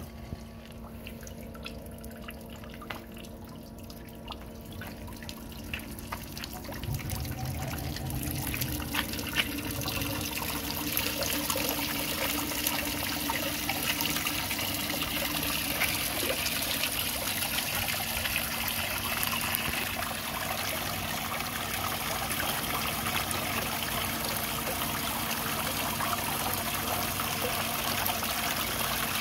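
Water and vinegar flush solution trickling and splashing from the outboard's tell-tale outlet back into the tub, driven by a submersible utility pump that hums steadily underneath. The water sound builds over the first several seconds as the flow comes up, then runs steady.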